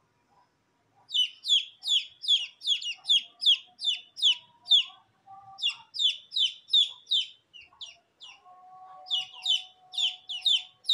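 Aseel chicks peeping: loud, high, repeated peeps, each falling in pitch, about three a second, in runs broken by two short pauses.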